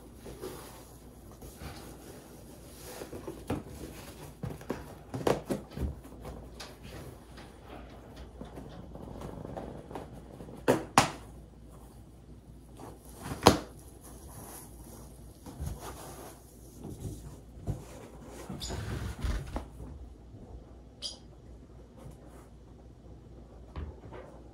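Scattered light knocks and clatters in a small room, with two sharper knocks about eleven and thirteen and a half seconds in.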